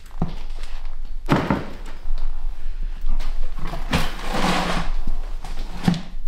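A large bonsai forest's root mass being lifted and set down into a pot of akadama soil: a few thumps, with the scrape and rustle of soil and roots.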